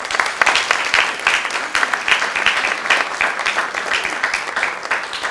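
Audience applauding, dense clapping that begins to thin out near the end.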